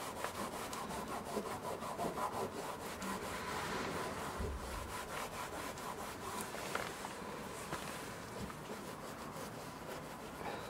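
Dry microfiber cloth rubbing back and forth over a plastic car door handle, buffing off trim restorer: a steady brushing friction in quick repeated strokes, growing fainter in the last few seconds.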